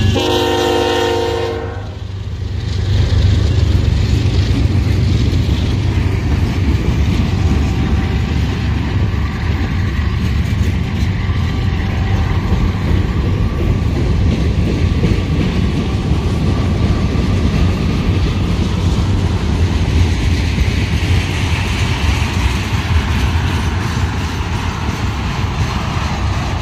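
Norfolk Southern freight train's horn sounding and cutting off about two seconds in, then the diesel locomotives and the train's hopper and tank cars rolling past close by with a loud, steady rumble.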